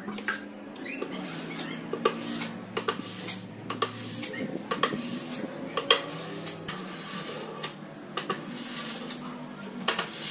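Plastic glue spreader scraping back and forth over the back of an HPL laminate sheet, spreading glue, with a sharp click at about every stroke. Faint background music runs underneath.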